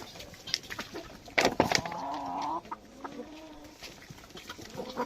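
Desi country chickens clucking, with one drawn-out call about two seconds in and scattered short clicks and calls around it.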